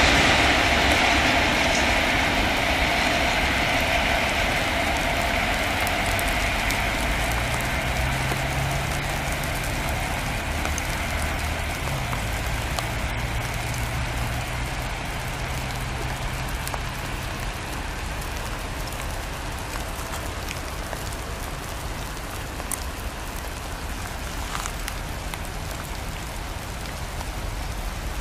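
Container freight train rolling away along the track, its rolling noise fading over the first ten seconds or so. A steady hiss of rain is left once it has gone.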